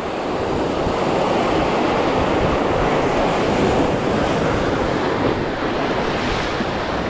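Sea surf breaking and washing over the rocks below, a loud steady rush that swells over the first second, with wind buffeting the microphone.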